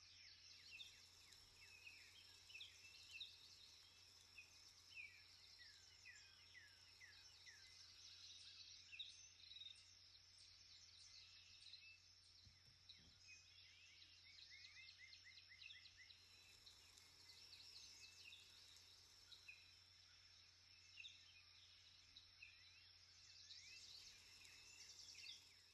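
Faint outdoor chorus of many small birds chirping in quick short notes, over a steady high-pitched insect drone.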